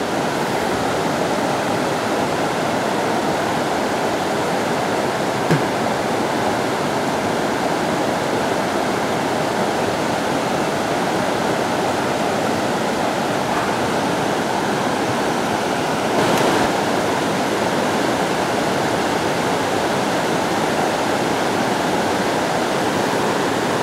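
River water rushing steadily over a rocky riffle: an even rush with no breaks.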